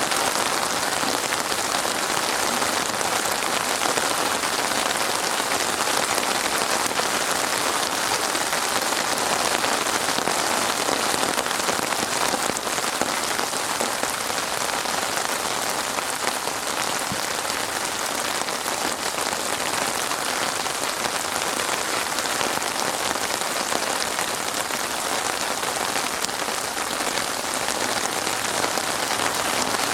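Steady rain falling on a surface: an even, dense patter of drops.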